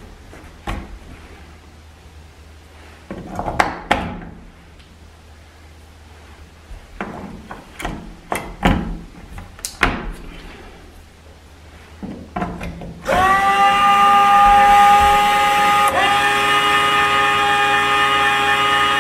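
AA batteries clicking and knocking into the battery holder of a Ladies First automatic chicken door. About two-thirds through, its electric door motor starts with a short rising whine, then runs steadily with a brief hitch a few seconds later, raising the coop door because the unit is set to auto in daylight.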